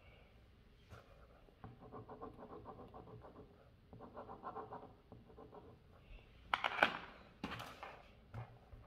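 Coloured pencil scribbling quickly back and forth on paper, in two stretches of rapid scratchy strokes. This is followed by a few louder clacks of pencils being handled on the table.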